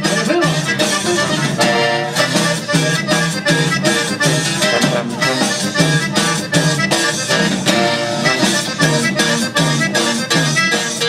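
Upbeat Mexican regional band music led by accordion, over a steady repeating bass beat.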